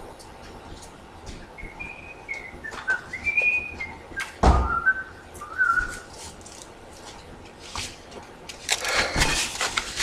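A person whistling a few short, gliding notes, with a single thump about halfway through. A burst of rustling and clicking follows near the end.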